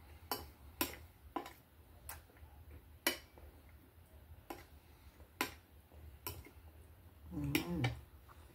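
Eating sounds: scattered sharp clicks, about nine in all, from a metal spoon tapping and scraping a plate and from chewing, with a short hum of the voice near the end.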